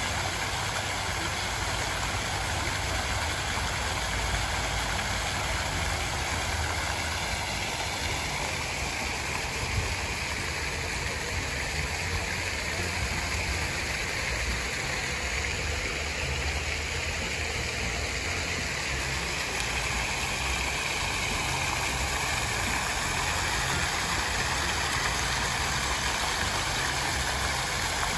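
Pond fountain jets spraying up and splashing back onto the water, a steady hiss of falling spray, with a low rumble underneath.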